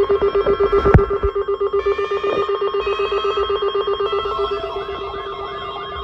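Several NOAA weather radios sounding their alert beeps together on receiving a Required Weekly Test: a rapid pulsing of several tones. A warbling siren joins in about five seconds in.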